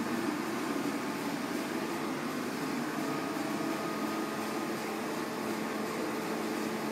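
Komori Lithrone LS 529+C five-colour sheet-fed offset press running, a steady mechanical whir with a few faint steady tones through it.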